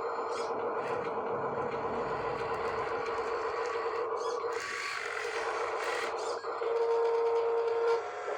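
A toy's small electric motor whining at a steady pitch, with short rattling and scraping bursts in the middle; the whine grows louder near the end.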